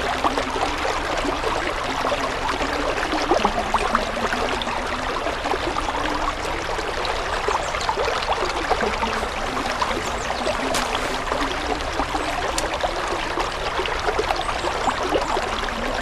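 Shallow mountain stream running over rocks: a steady babbling and trickling of water.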